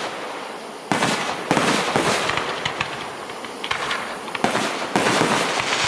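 Aerial fireworks bursting in quick succession during a finale: repeated loud bangs, several close together, with a dense crackle between them.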